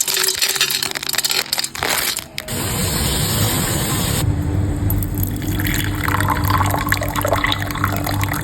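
Water filling a container, a steady splashing hiss, with knocks and clatter in the first couple of seconds.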